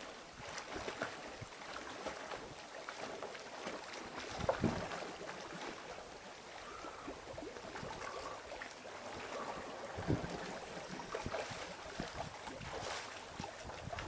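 Sea water washing against a rocky shore with wind buffeting the microphone, as a steady rushing noise; a couple of louder washes come about four and a half and ten seconds in.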